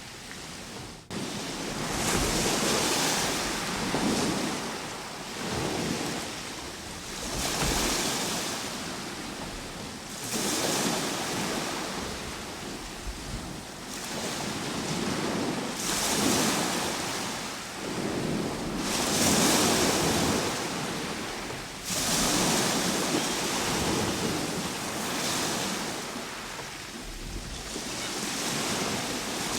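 Ocean waves breaking on a shore, a fresh wave surging in and washing back every few seconds in a steady rhythm.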